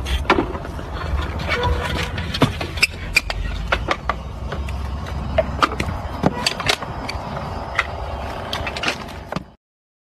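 Hand-moulding earth bricks in a wooden mould: irregular wooden knocks and clatter with the scrape of packed soil being struck off. The sound cuts off suddenly near the end.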